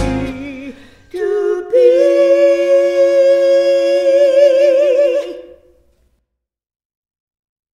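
A voice holds the long closing note of a gospel song with a wavering vibrato, coming in about a second in as the last chord dies away and stepping up to the held pitch just after. The note fades out about five and a half seconds in.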